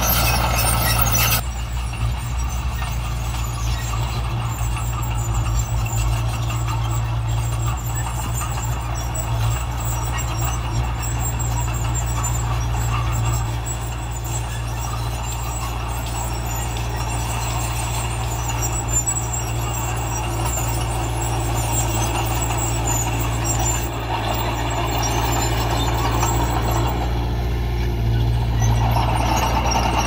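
Heavy diesel engine of earth-moving machinery running steadily under work, with a slight drop in level about a second and a half in.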